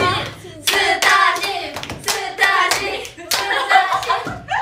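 A group of young women laughing and calling out together while clapping their hands, with several sharp claps among the voices.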